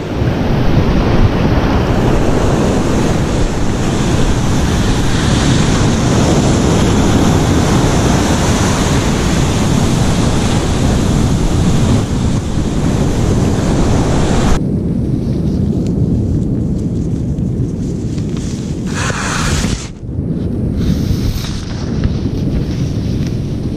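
Ocean surf washing on the beach, with wind buffeting the microphone. About two-thirds of the way through, the hiss of the surf drops away abruptly, leaving mostly the low rumble of the wind.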